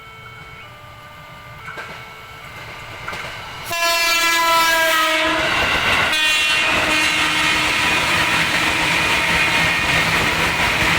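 Faint electronic tones step up and down in pitch. Then, almost four seconds in, a passing train sounds a loud single-note horn for about a second and a half, followed by a short second blast. The train then runs close by with a steady loud rush and rumble of wheels on the rails.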